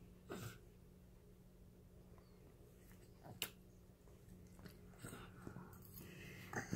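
Baby chewing a noodle: faint, scattered mouth sounds, with a short sound just after the noodle goes in and a sharp click about three and a half seconds in.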